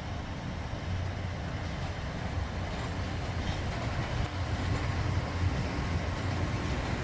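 Speno RR32 M5 rail-grinding train passing, a steady rumble of its diesel engine and wheels on the rails that grows gradually louder.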